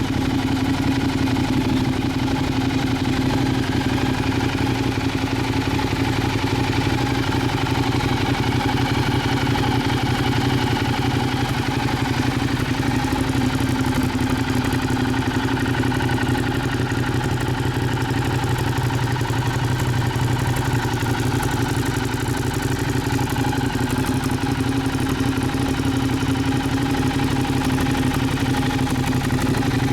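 Ducati Diavel's L-twin engine idling steadily through an aftermarket silencer.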